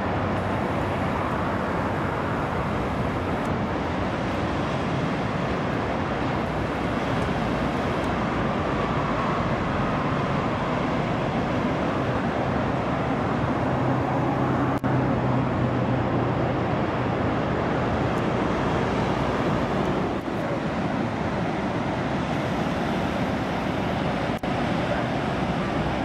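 Steady outdoor roar of ocean surf and wind on the microphone, with a faint low hum for several seconds in the middle.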